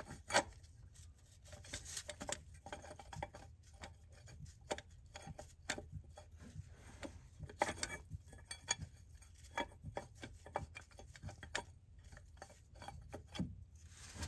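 Irregular light clicks, taps and rubbing as gloved hands thread the oil filter housing bolts in by hand, metal parts knocking lightly against the housing and engine block.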